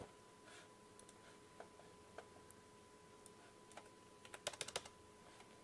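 Faint computer keyboard and mouse clicks: a few scattered single clicks, then a quick run of about eight keystrokes a little past four seconds in.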